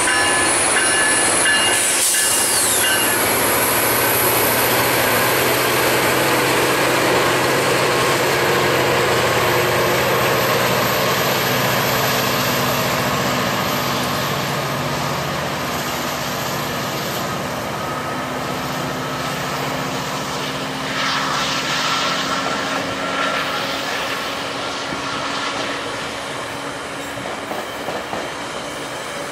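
GO Transit MP40 diesel-electric locomotive pulling away under power, its engine running loud at first and growing fainter as it moves off. Bilevel passenger coaches follow, their wheels rolling over the rails, with a brief wheel squeal about two-thirds of the way through.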